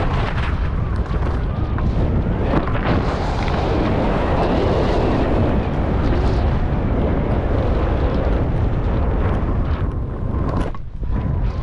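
Wind buffeting a point-of-view camera's microphone during a fast ski descent, with skis scraping and hissing over tracked snow. A steady loud rumble with scattered crackles that drops off briefly near the end.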